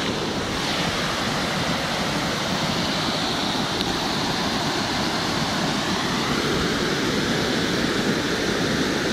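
Water spilling over a low dam weir and rushing through the stream below, a steady even roar of moving water.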